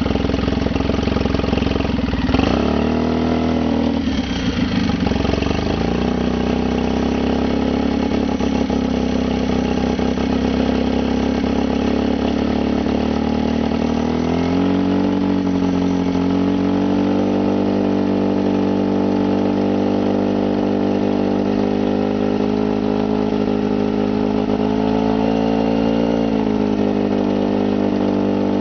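Polaris Sportsman 800 ATV's twin-cylinder engine running steadily as the quad is driven through deep floodwater, its pitch shifting a few times with the throttle: dropping a few seconds in, rising and steadying about halfway, and dipping briefly near the end.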